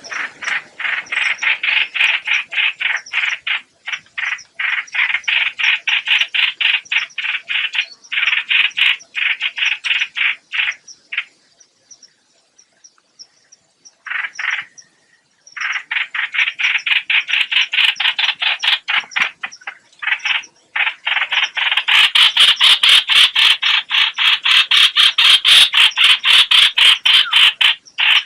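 Recorded lure call of the bird that Vietnamese trappers call 'hoạch hoạch': a fast, dry rattle of even pulses, about five a second, in long runs with short breaks. It grows louder and harsher over the last several seconds.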